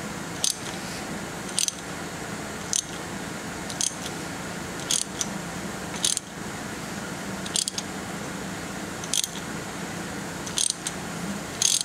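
Ratchet wrench turning a small-block Chevy's crankshaft over slowly by hand through the exhaust stroke: a short burst of pawl clicks on each back-swing, about once a second, over a steady shop hum.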